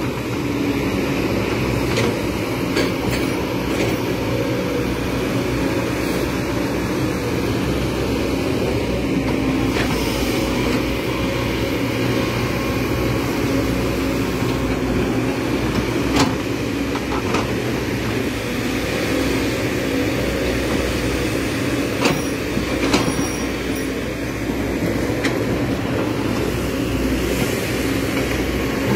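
Kobelco SK210 hydraulic excavator with its diesel engine running steadily, and a few sharp knocks over the drone.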